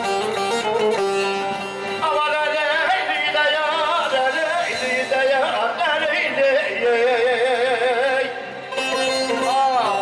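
Man singing an ornamented, wavering melody into a handheld microphone over amplified instrumental backing. The backing plays alone for about the first two seconds before the voice comes in.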